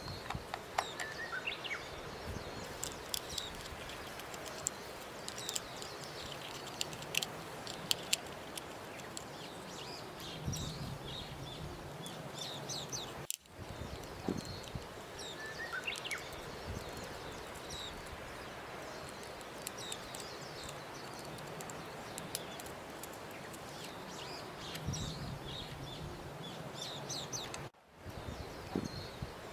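Birds chirping over a steady outdoor hiss, a nature-ambience bed. The sound drops out twice, briefly, about 13 and 28 seconds in.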